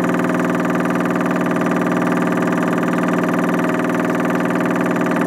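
An engine running steadily, one even drone that holds the same pitch throughout.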